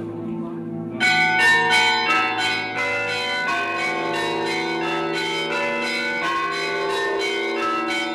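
Church bells ringing, struck again and again in quick succession with their tones ringing on and overlapping, starting suddenly about a second in after a soft held music chord.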